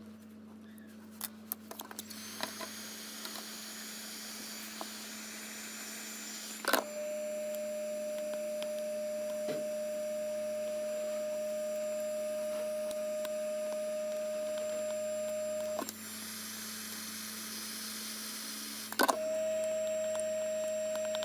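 A hot air rework station's blower running with a steady whirring hiss to desolder a part from the speaker's circuit board; a steady tone comes in and out at sharp clicks about seven and sixteen seconds in, and again near the end.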